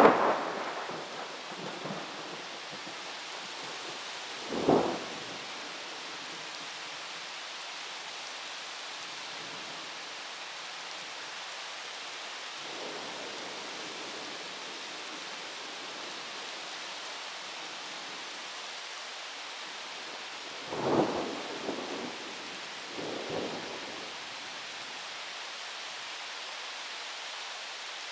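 Steady rain hiss of a night thunderstorm with short claps of thunder: a loud one fading right at the start, another near five seconds in, and two more close together about three quarters of the way through.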